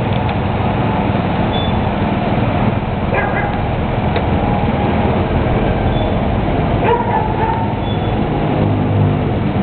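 Honda Elite 125 scooter's single-cylinder four-stroke engine idling steadily, with two short sharp sounds about three and seven seconds in.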